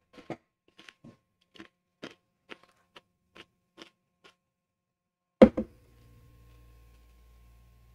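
Crunchy corn chip being chewed with the mouth closed, a soft crunch about twice a second, stopping about four seconds in. About five and a half seconds in, a single sharp knock with a brief ring, a glass of milk set down on the desk.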